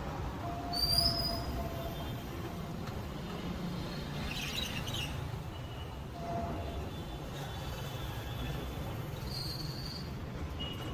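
Steady low rumble of street traffic, with a brief high squeal about a second in and another near the end.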